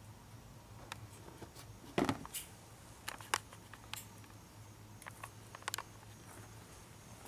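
Scattered small clicks and knocks of bottles and plastic bins being handled, with one duller knock about two seconds in, over a low steady hum.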